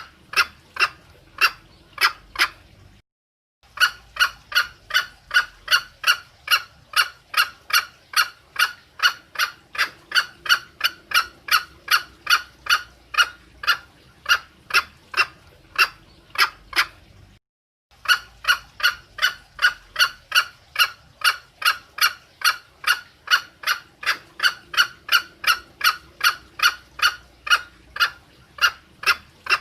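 Female green junglefowl calling in a fast, steady series of short clucking notes, about two or three a second, with two brief silent breaks; a call recording used as a lure to draw in males.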